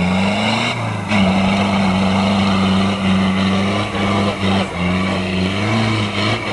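Toyota Land Cruiser KZJ70's 3.0-litre turbo-diesel four-cylinder engine pulling under load up a steep muddy slope. The revs dip briefly about a second in, then hold steady.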